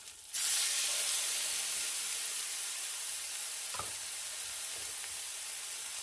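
Taco frying in consommé in a hot pan: a loud sizzle that starts suddenly just after the start and slowly eases off, with a short knock about four seconds in.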